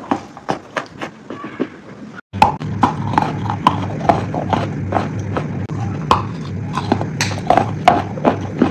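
Crisp crunching of crunchy food being chewed, sharp crunches coming about three a second. The sound cuts out briefly a couple of seconds in and resumes with a steady low hum under the crunches.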